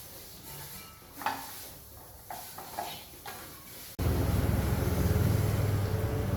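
A few light clicks and knocks, then from about four seconds in a steady low hum that starts abruptly.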